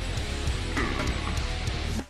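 Music with guitar, starting suddenly.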